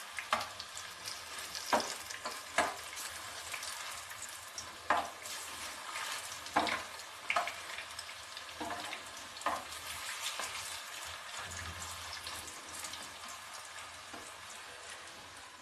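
Noodle fritters (chow pakoras) sizzling as they shallow-fry in hot oil in a non-stick pan, while a slotted metal spatula scrapes and clicks against the pan, turning them over now that one side has browned. The clicks come every second or so over the first ten seconds, and the sizzle eases off a little near the end.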